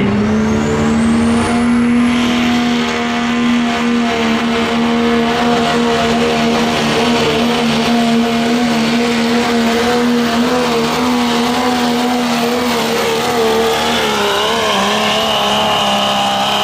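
Turbocharged diesel pickup running at full throttle while pulling a weight-transfer sled. A high whine rises in pitch over the first few seconds and then holds. The engine note stays steady, then wavers up and down over the last few seconds.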